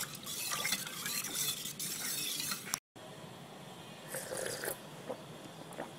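A metal spoon stirring buttermilk in a stainless steel pot, with light knocks of the spoon against the pot, for about three seconds. Then the sound cuts off suddenly, and a quieter stretch follows.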